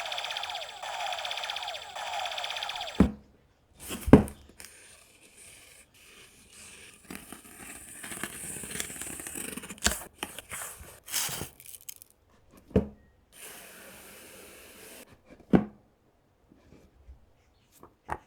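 Unboxing a boxed toy transformation belt: packaging rustling and tearing, with scattered thuds and knocks as the box and parts are handled and set down. A pitched electronic sound with falling tones plays at the start and cuts off about three seconds in.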